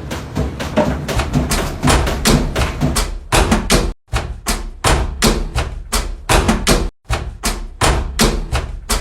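Washing machine knocking and thumping in a rapid, fairly regular rhythm, about three knocks a second, cut by two brief dead-silent gaps.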